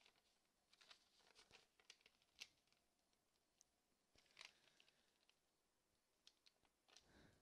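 Faint rustling and crinkling of origami paper being handled and creased, a few soft crackles and ticks in scattered clusters.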